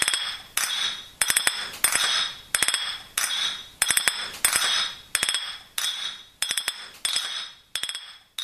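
Repeated clinking, like cutlery knocking on crockery, in a steady rhythm of about three clinks every two seconds. Each clink is a quick cluster of ticks with a brief high ring.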